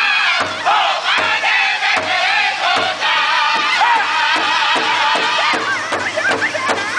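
Pow-wow drum group beating a large shared hide drum with drumsticks in a steady beat, about three strokes a second, while the drummers sing together in high, wavering voices.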